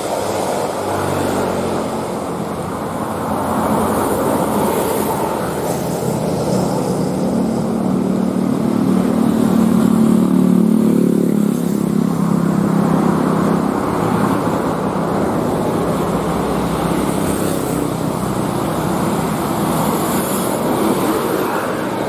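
Road traffic passing close on a hill: a motorcycle, then a tour bus whose diesel engine hum grows and is loudest about ten seconds in, followed by passing cars.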